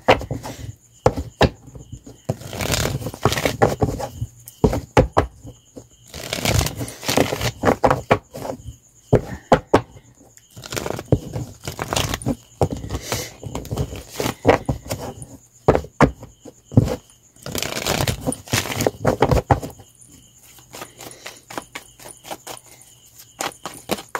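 A deck of tarot cards being shuffled by hand: quick, irregular runs of card clicks and rustling. The runs thin out to sparser, quieter clicks in the last few seconds.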